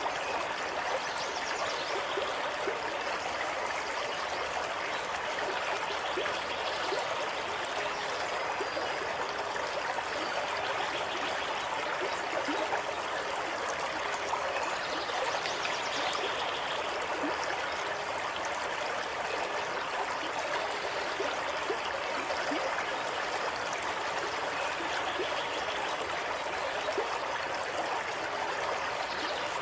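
Water flowing steadily, like a small stream: an even rush with many small splashes and trickles throughout.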